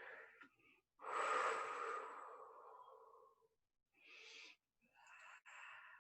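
A woman breathing loudly and deliberately into the microphone: a strong breath about a second in that trails off over a couple of seconds, then two shorter breaths.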